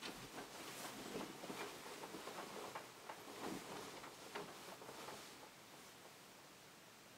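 Faint rustling of bedding and a duvet as someone climbs into bed and pulls the covers over, with soft scattered knocks, dying away after about five seconds.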